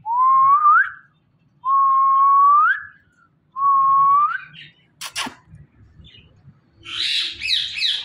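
Indian ringneck parrot whistling three times, each a steady note that rises at the end. About five seconds in there is a sharp click, and near the end a harsh, raspy call.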